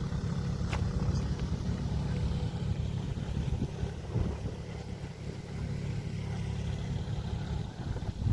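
An engine running steadily with a low rumble, with a single faint click about a second in.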